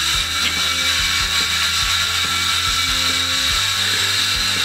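Electric power saw cutting through a plywood sheet: a loud, steady whine that starts abruptly and keeps going without a break.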